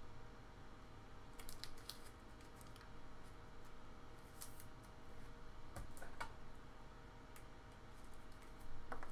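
Faint scattered clicks and scrapes of a trading card being handled and slid into a rigid clear plastic top loader, over a steady low hum.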